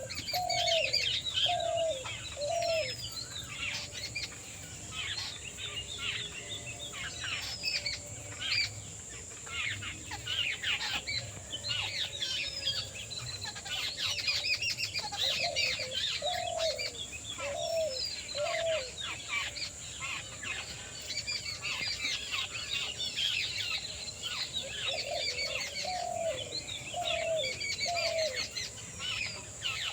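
A dense chorus of many small birds chirping and trilling in quick, overlapping high calls. A lower-pitched call of four short notes comes three times: at the start, around the middle and near the end. A steady high hiss runs underneath.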